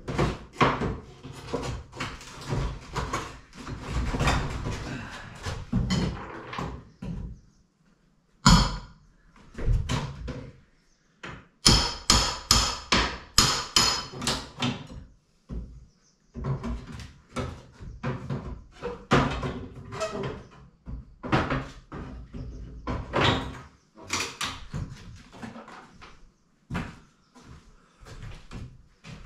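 Clatter of demolition rubble and hand tools being worked: irregular knocks, scrapes and thuds, with a quick run of sharp ringing strikes about twelve seconds in.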